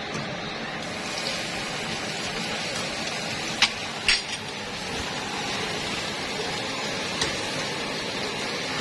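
A few sharp clinks of kitchen utensils against dishes over a steady hiss: two close together about halfway through and one more near the end.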